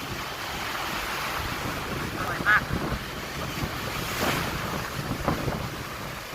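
Sea waves washing, with wind buffeting the microphone. A brief high-pitched squeak cuts through about two and a half seconds in.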